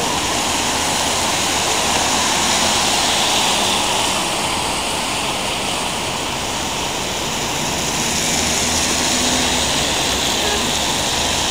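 Steady city street noise: traffic on rain-wet roads, heard as an even hiss.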